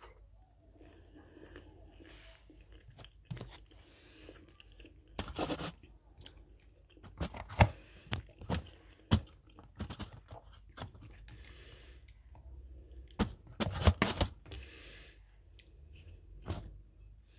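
Close-up chewing and mouth sounds of a person eating, with sharp wet smacks and clicks coming in clusters a few seconds apart.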